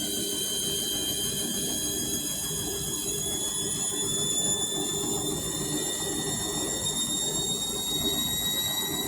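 Overloaded 7 kg washing machine spinning, the drive motor's high whine climbing slowly in pitch over a steady rumble from the heavy drum.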